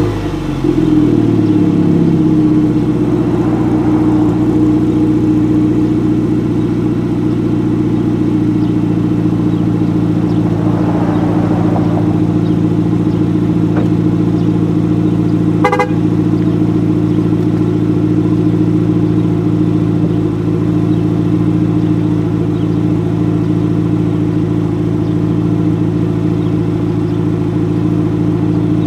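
A Cadillac ATS's 2.0-litre turbocharged four-cylinder idling steadily through a CORSA cat-back exhaust. It settles back to idle in the first second after a rev.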